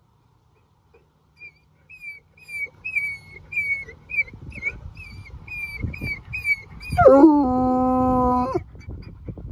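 Bluetick coonhound whining in a run of short high notes, about two a second, then letting out one loud howl about seven seconds in that drops sharply in pitch and is then held steady for about a second and a half.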